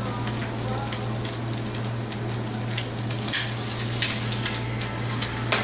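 Food sizzling and crackling in a frying pan, with scattered sharp pops, over a steady low hum.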